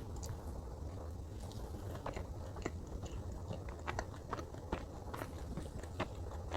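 A person chewing Godiva salted caramel chocolate cake close to the microphone, with many short, irregular mouth clicks.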